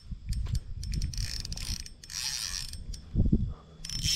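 Spinning reel's drag buzzing in three bursts as a big carp pulls line off, with a heavy low thump a little after three seconds.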